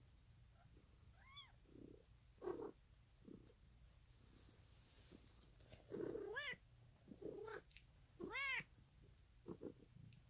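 A cat mewing: three short, high mews that rise and fall in pitch, about one, six and eight and a half seconds in, with soft rustling of cloth between them.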